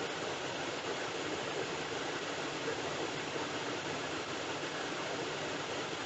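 Steady, even hiss with no distinct tones or events.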